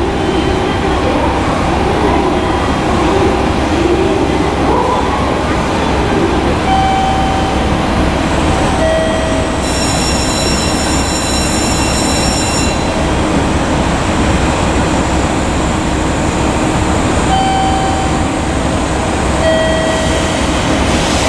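KiHa 71 diesel railcar standing at a platform with its engines idling, a steady low rumble. Near the middle a bright, high electronic tone sounds for about three seconds, and short single beeps come and go.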